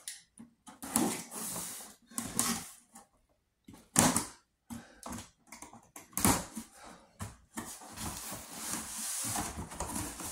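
A large cardboard box being handled and opened: irregular scraping and rustling of the cardboard and tape, with a few knocks as it is shifted and laid down, the loudest about four and six seconds in.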